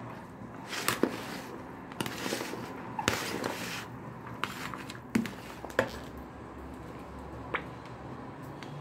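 Metal spoon stirring a rice and crab stick salad in a bowl: soft rustling and scraping of the grains, with scattered sharp clicks of the spoon against the bowl.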